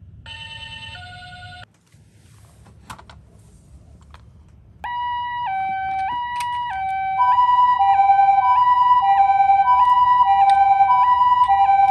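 Toy ambulance's electronic two-tone siren, alternating a high and a low note about every half second in the Japanese ambulance 'pee-poh' pattern. It starts about five seconds in and grows louder about two seconds later as a second siren overlaps it. Before it there is a brief electronic toy jingle and a few handling clicks.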